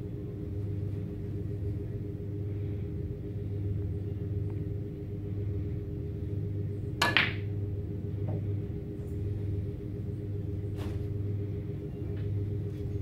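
A snooker shot: about halfway through, the cue strikes the cue ball with one sharp, doubled click of balls meeting, followed by a couple of much fainter ball clicks. Under it runs a steady background hum.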